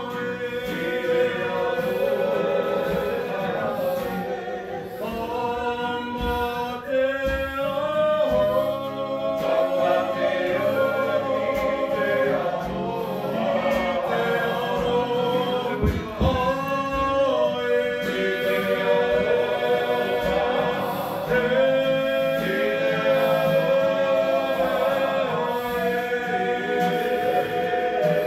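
A group of Māori performers singing a waiata together, voices in unison and harmony moving between long held notes.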